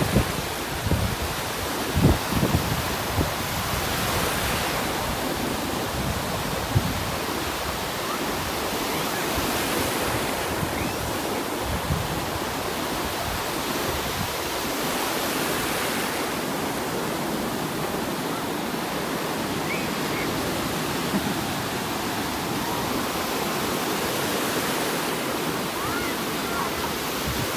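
Ocean surf: a steady rush of breaking waves and white water washing around, swelling every five or six seconds as each wave comes in. Wind buffets the microphone with low thumps in the first two seconds or so.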